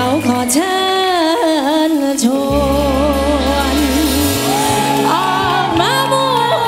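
Woman singing an upbeat Thai song into a microphone with a live band, her voice wavering over sustained bass notes.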